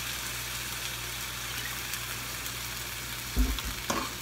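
Sliced beef and onion sizzling steadily in a frying pan as soy sauce is spooned in over low heat, with a low knock and a couple of clinks about three and a half seconds in.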